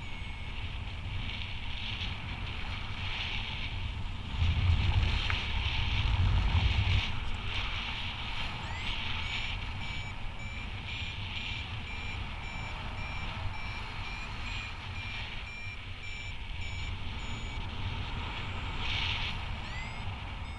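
Paragliding variometer beeping repeatedly, the tone pattern a vario gives when the glider is climbing in a thermal, over steady wind noise on the microphone that swells in a gust about five seconds in.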